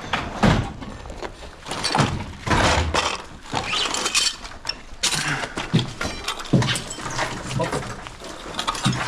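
Irregular clatter and knocks of hard objects being picked up and handled, some with a brief ring.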